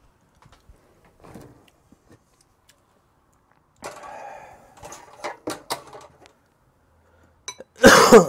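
Tableware being handled on a table: a short scrape, then several sharp clicks and knocks as dishes and a frying pan are moved. A sudden loud burst near the end.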